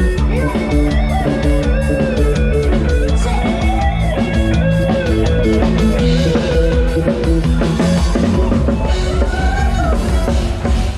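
Lam sing (electrified Isan folk-pop) band playing an instrumental passage with no singing: a drum kit keeping a steady beat under bass and a lead melody line with sliding, bent notes.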